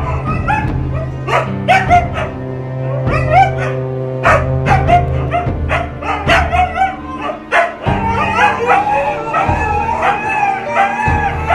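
Huskies barking and yipping at each other in short bursts, then, about eight seconds in, two huskies howling together in long wavering calls. Background music plays under the dogs.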